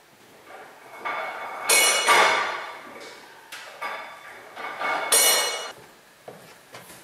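Several sharp metallic clanks and clinks, each ringing on briefly, from hand work on a stationary steam engine's flywheel and its metal parts.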